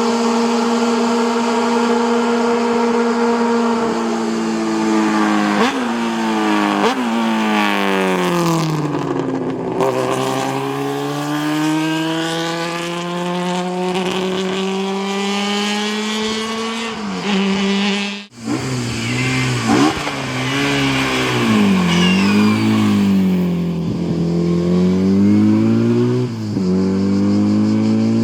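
Historic racing car engines run hard on a hill-climb. The first engine holds a high steady note, then changes up through several gears with the pitch dropping and slowly climbing again. After a cut about 18 s in, a second engine's revs rise and fall repeatedly as it lifts and accelerates between shifts.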